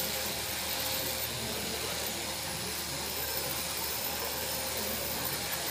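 Electric sheep-shearing handpiece running steadily with a hiss and buzz as it cuts the fleece off a lamb.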